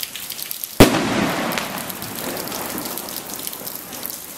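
Aerial canister shell firework bursting with one loud bang about a second in, followed by a dense crackle of strobe stars that slowly fades over the next few seconds.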